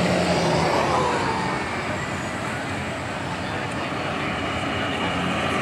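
Road traffic passing on a wide street: a steady wash of tyre and engine noise, with one passing vehicle's engine note falling in pitch between about half a second and two seconds in.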